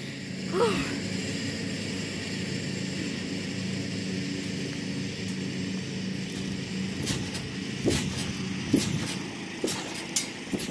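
A steady low motor hum throughout, from an unseen engine. From about seven seconds in come irregular thumps and knocks as someone jumps on the trampoline mat beside the camera.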